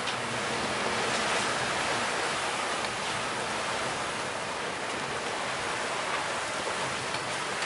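Steady, even rush of the sea and wind around a sailing catamaran under way in open water, with no distinct knocks or calls.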